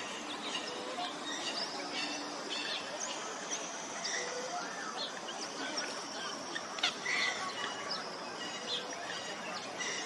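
Outdoor bird chorus: many short chirps and whistles from several birds, over a thin, high, held tone that runs through the middle.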